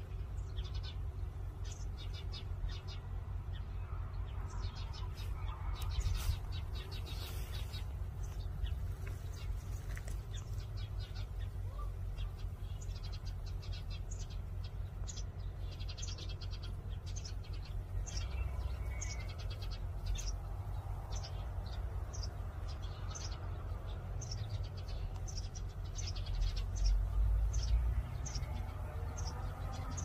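Small birds chirping, short high calls repeating about once or twice a second and coming thicker in the second half, over a steady low rumble.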